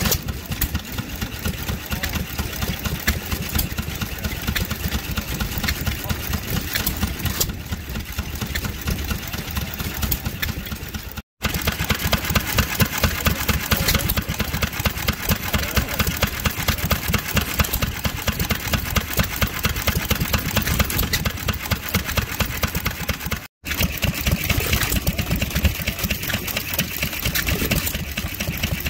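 Three vintage single-cylinder stationary engines running in turn, each with a steady, rapid beat: a small black engine on a wheeled trolley, then a 1916 1 hp Mogul engine from about 11 seconds in, then a 1925 1¾ hp Bamford from about 24 seconds in. The sound breaks off for a moment at each change.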